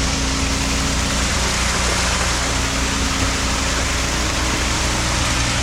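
Heavy diesel engine of a concrete truck running steadily, with an even rushing noise over it.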